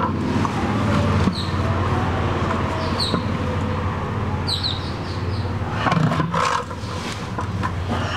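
Large hard balls rolling across a concrete floor with a steady low rumble and a few knocks as they are pushed and bump. Short high bird chirps come through a few times.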